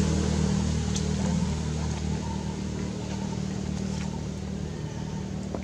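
A motor vehicle's engine running at a steady pitch, growing fainter as it moves off.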